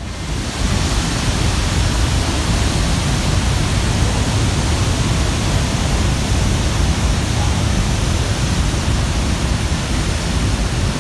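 Steady rushing of Niagara Falls and the churning river below, a dense even hiss with a deep low rumble that comes up about half a second in.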